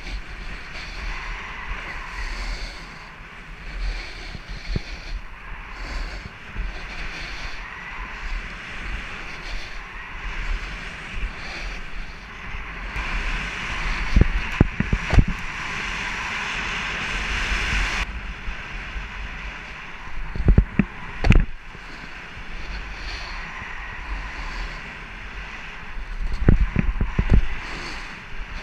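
Snowboard sliding and carving down a groomed slope: the board's edges hiss and scrape on packed snow, with wind rushing over the camera microphone. The scraping grows louder for a few seconds around the middle, and several dull thumps come from bumps in the run, in the middle and near the end.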